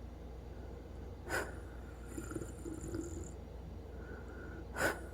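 Wheezing breathing of a sleeper: faint thin whistling tones on the breaths, broken by two short, sharp snorts about three and a half seconds apart.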